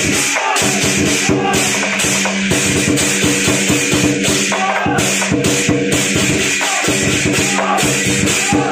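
Music with a quick, steady percussion beat over held, sustained tones.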